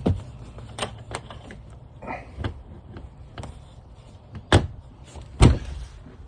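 RV Murphy bed being pushed up and folded into a futon: a run of clicks and knocks from its frame and hinges, ending in two loud thumps about a second apart as it settles into place.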